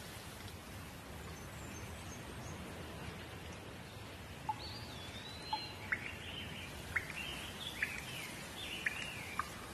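Steady patter of light rain with birds calling over it. From about four and a half seconds in come a sweeping whistle and then a run of short, sharp chirps about once a second.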